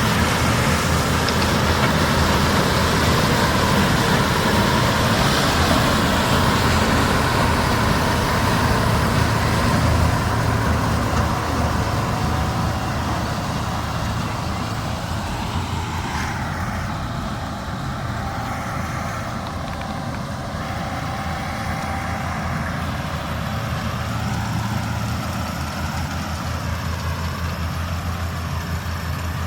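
Heavy diesel farm machinery running steadily at work, a combine harvester and tractors. It is loudest for the first ten seconds or so, then eases off, and the high hiss thins out about sixteen seconds in.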